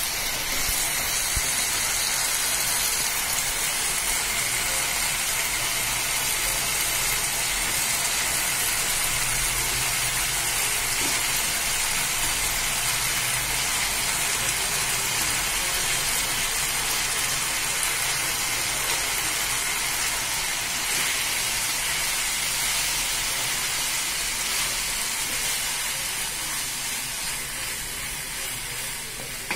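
Manchurian sauce sizzling steadily in a frying pan with the fried oats balls in it, easing off a little near the end.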